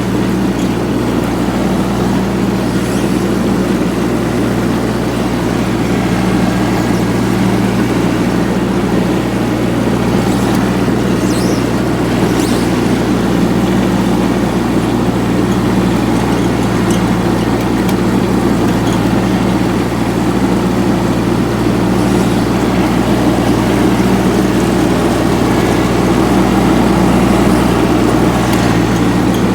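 Kubota G1700 ride-on mower's diesel engine running steadily at constant speed while cutting grass.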